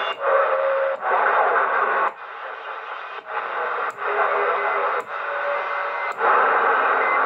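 Cobra 148GTL CB radio receiving static hiss through its speaker on the 11-metre band, with faint whistles, as the channel selector is stepped down one channel at a time. The hiss drops out briefly about once a second at each channel change.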